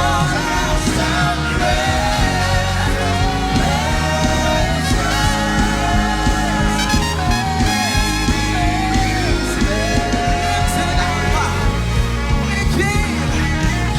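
Live gospel praise-and-worship music: singers carrying a melody over a band with bass and drums keeping a steady beat.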